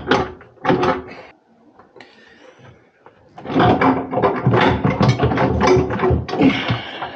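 A wall-mounted water heater tank being rocked and lifted on its wall hooks, scraping and rattling in rapid grating clicks. There is a short spell at the start and a longer, louder one from about three and a half seconds in.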